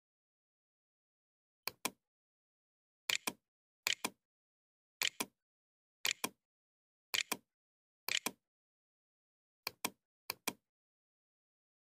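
Computer mouse button clicking about once a second, each click a quick pair of press and release.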